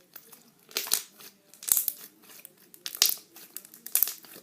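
Clicky slime being squeezed and stretched in the hands, popping in crackly bursts of clicks as trapped air pockets break. There are four bursts, about a second apart.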